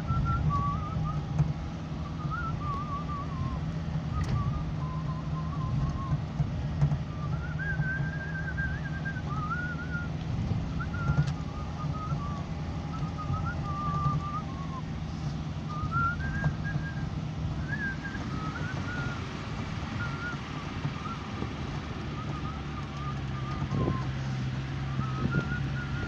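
A person whistling a wandering tune in short phrases, over the steady low rumble of a vehicle driving a rough gravel track, heard from inside the cab.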